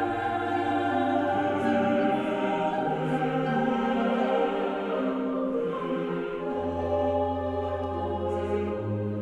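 Slow background music of long held chords that change every second or two.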